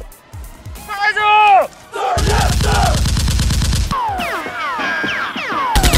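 Gunfire sound effects: a long burst of rapid automatic fire from about two seconds in and another burst starting near the end, with falling whistling tones between them. About a second in there is a loud falling whine.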